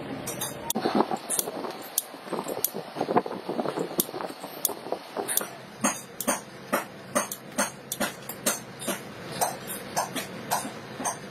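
Pliers working the plate stack of an old lead-acid battery cell: a run of sharp metallic clicks and clinks as the plates are gripped and pried apart, scratchy and dense at first, then about two clicks a second.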